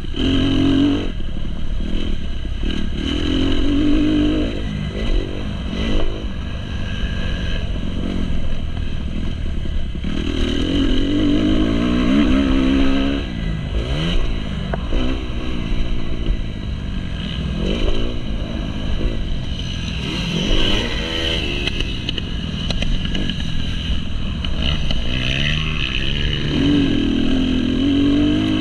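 Kawasaki KX250 four-stroke single-cylinder motocross engine running hard, its pitch rising and falling again and again as the throttle is opened and closed along the track.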